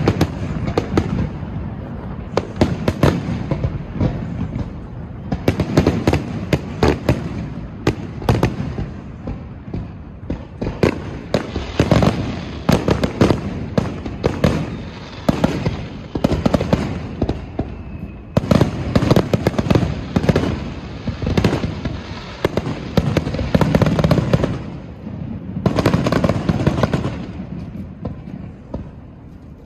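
Fireworks display: a near-continuous barrage of sharp bangs and deeper booms, many in quick succession, easing briefly about ten seconds in and again near the end.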